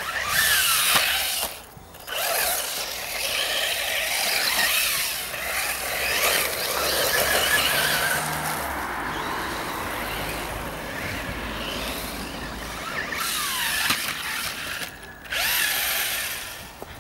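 Reely Carbon Fighter 1:10 RC buggy running hard: a high motor and gear whine that rises and falls in pitch with the throttle, over a rushing hiss. It cuts out briefly twice, about two seconds in and near the end.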